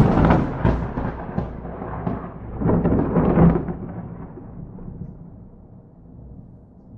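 A thunderclap that breaks suddenly, swells again about three seconds in, then rumbles and slowly fades.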